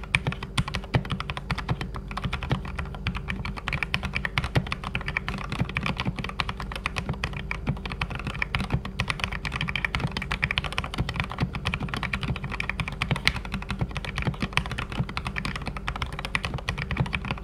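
Typing on a Keychron K8 mechanical keyboard fitted with Gateron Yellow linear switches hand-lubed with Krytox 205g0: a fast, continuous run of keystrokes.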